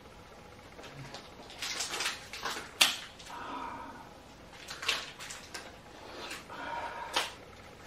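Plastic protective film being peeled and handled on a new device, crinkling and rustling in irregular bursts, with sharp crackles about three, five and seven seconds in.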